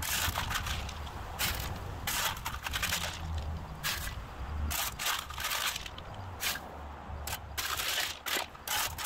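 Steel shovel blade scraping across concrete and river rock stones clattering as they are scooped and pushed onto landscape fabric, in a run of irregular strokes.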